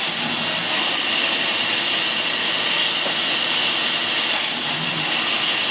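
Sawmill saw cutting through wood: a steady, high-pitched hissing noise without breaks.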